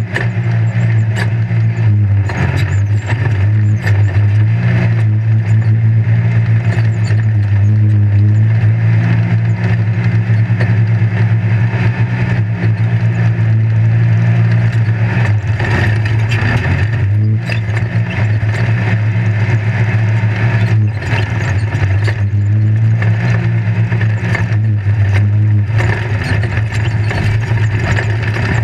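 Off-road race vehicle's engine running loud and steady under power, heard from inside the caged cockpit, its pitch shifting briefly a couple of times. Frequent short knocks and rattles from the chassis over rough ground.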